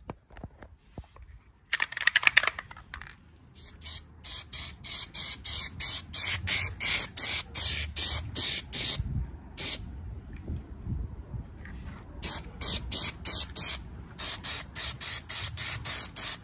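Aerosol spray paint can sprayed in quick short bursts, about two a second, with a short break about halfway through and a longer one soon after.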